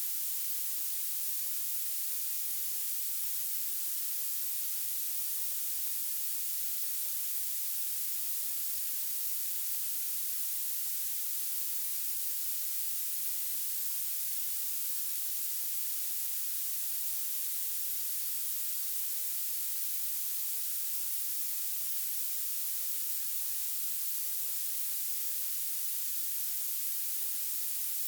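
Violet noise: a steady, unchanging hiss weighted heavily toward the highest pitches, with almost nothing in the low end.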